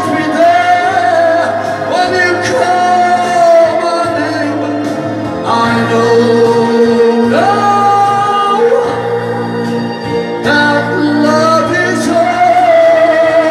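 A man singing live into a microphone over a recorded backing track played through PA speakers, holding long notes with a wavering vibrato.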